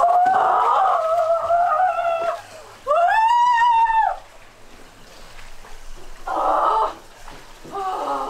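A woman's wordless cries from the shock of freezing ice water. A long held cry is followed by a second cry that rises and then falls. Later come shorter shaky vocal sounds.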